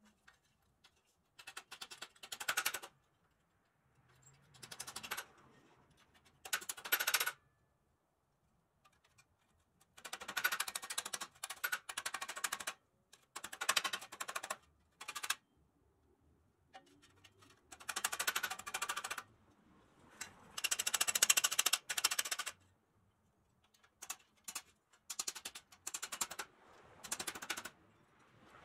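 Ball-peen hammer tapping quickly on the thin pressed-steel chassis plate of a 1930s Kingsbury wind-up toy car, held against a bench vise to work a bent tab. The sound is a string of short bursts of light, rattling metal taps, each a second or two long, with pauses between.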